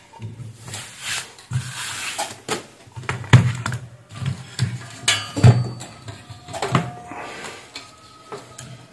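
Irregular knocks and clatter of an inverter welding machine's circuit board, with its aluminium heatsinks and wiring, being handled and shifted on a workbench. Two knocks, about a third and about two thirds of the way in, are louder than the rest.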